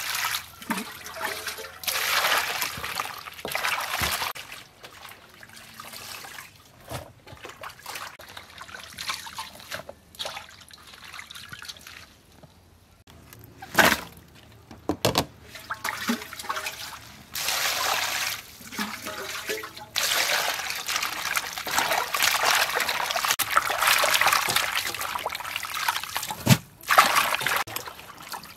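Water poured from a scoop over softened napa cabbage in a steel bowl, with hands rinsing and swishing the leaves; the pouring and splashing come in several spells, the longest in the second half. A few sharp knocks, two about 14 and 15 seconds in.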